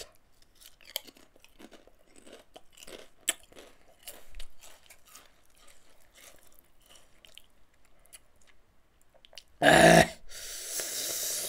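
Crunchy snack chips being bitten and chewed with the mouth, a run of small crisp crunches. About ten seconds in there is a much louder short burst of noise, followed by a louder noisy stretch.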